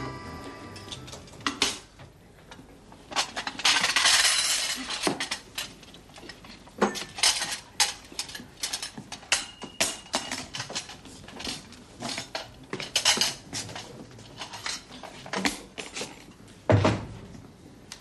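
Crockery and cutlery clinking and knocking on a small table, in scattered irregular clicks, with a longer burst of rustling noise about four seconds in.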